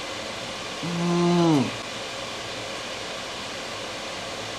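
A man's single hummed "mmm" of enjoyment while tasting ice cream, lasting under a second about a second in, held on one pitch and then dropping away. A steady hiss runs underneath.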